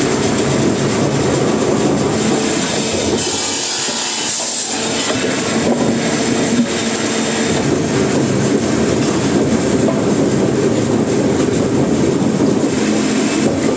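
Wood-processing machinery running: a loud, steady mechanical noise, with a brief dip in the low end about four seconds in.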